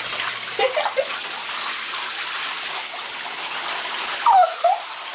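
Water running from a hand-held shower head into a bathtub, a steady spray. A brief voice sound comes about a second in, and a louder, falling one comes near the end.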